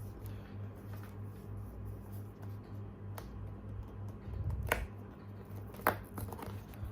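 A blind-box package being handled: three short, sharp clicks over a low, evenly pulsing hum.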